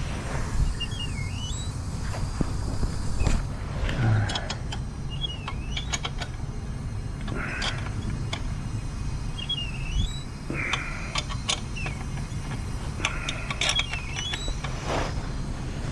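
Short metal clicks and scrapes of a wrench tightening the fittings of a new gas service riser at the meter regulator, a few seconds apart, over a steady low rumble.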